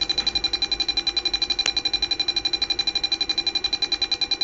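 Small speaker driven by an Arduino Mega2560 playing a high, buzzy electronic tone that pulses on and off rapidly and evenly, more than ten times a second, with a single click about one and a half seconds in.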